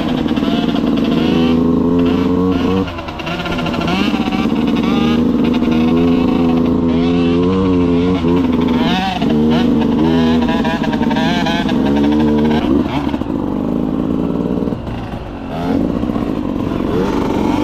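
Dirt bike engine heard close up from the rider's own bike, revving up and falling off again and again as the throttle is worked along a trail, with three short let-offs.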